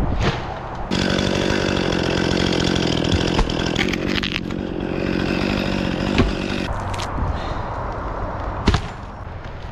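Chainsaw running at cutting speed through wood, easing off to a lower, lighter running about two-thirds of the way through. Several sharp knocks cut through it: cut log sections smashing on each other.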